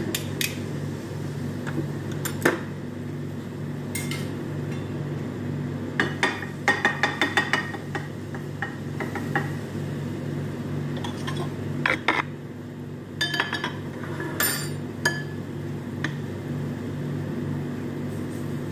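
Metal kitchen utensils clinking and tapping, with a quick run of clicks about six to seven and a half seconds in and more scattered clinks later, over a steady low hum.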